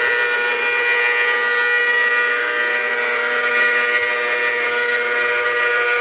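Outdoor tornado warning siren holding a steady tone at full pitch.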